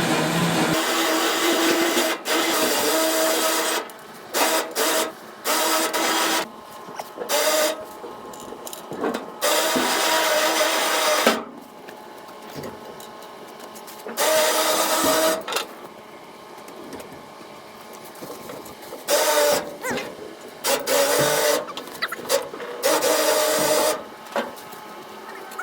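Electric winch motor whirring in short pulls, started and stopped about a dozen times with quieter gaps between, as it drags a bare car shell onto a trailer. The first pull is the longest, about four seconds.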